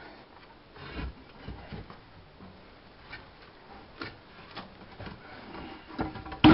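Scattered knocks and scrapes of wood against brick as a wooden arch support form is worked loose from under a kiln's brick arch, with the sharpest, loudest knock at the very end.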